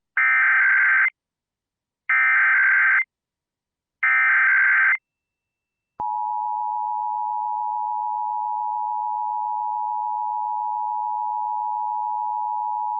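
Emergency Alert System tones opening a Required Monthly Test: three separate one-second bursts of SAME digital header data, about a second apart. Then, after a second's gap, the steady EAS two-tone attention signal starts and holds.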